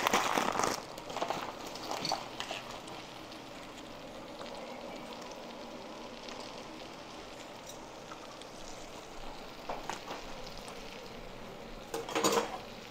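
Battered fritters deep-frying in hot oil: a steady sizzle. It grows briefly louder in the first second and again near the end.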